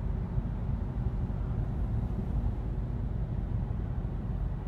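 Road and engine noise inside the cabin of a moving BMW car: a steady low rumble.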